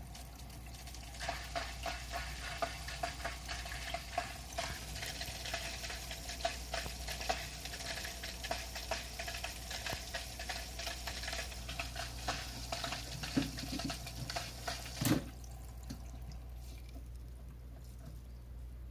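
Kotobuki Profit Filter Big hang-on-back aquarium filter running with a steady low hum and irregular crackling and sizzling as air leaking in at the flow-adjustment knob is churned by the impeller. A knock comes about fifteen seconds in, after which the crackling stops and only the hum and water go on.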